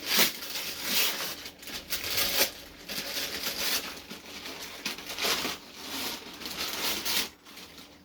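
Christmas wrapping paper being torn and crumpled by hand as a present is unwrapped, in a string of irregular rustling rips.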